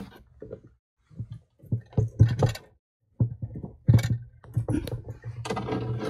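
Irregular plastic clicks and knocks as a PVC union fitting is handled and pushed onto a sump pump's outlet pipe inside a plastic tank, with a denser rustling stretch near the end.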